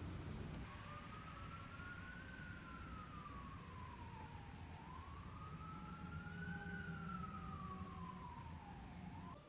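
Faint emergency-vehicle siren wailing, its pitch rising and falling slowly twice over a steady low rumble.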